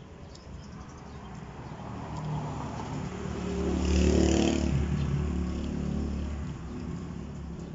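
A motor vehicle passing by, its engine rumble growing louder to a peak about four seconds in and then fading away.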